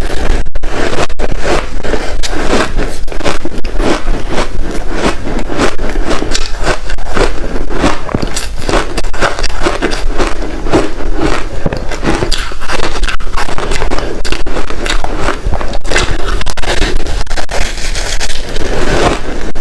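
Close-miked crunching of large chunks of reshaped ice coated with matcha powder, bitten and chewed in a rapid, continuous run of crackling crunches.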